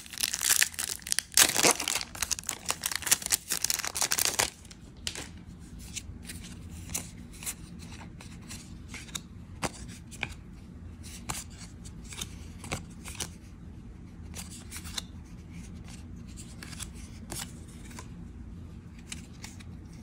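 The foil wrapper of a Magic: The Gathering collector booster pack is torn open and crinkled for about the first four seconds. Then comes a long run of light, scattered clicks and flicks as the trading cards are slid and flipped through by hand.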